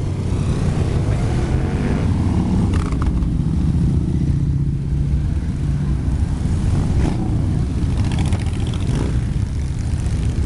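A stream of motorcycles and motorcycle trikes riding past one after another, their engines running with a continuous low sound.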